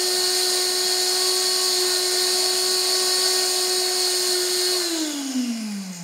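High-speed multifunction electric grinder running flat out while grinding glass: a steady high whine with a loud hiss. About five seconds in it winds down, its pitch sliding steadily lower as the motor coasts to a stop.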